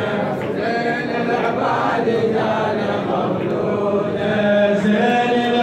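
Men's voices chanting a devotional praise song (madih) together, held notes flowing on without a break.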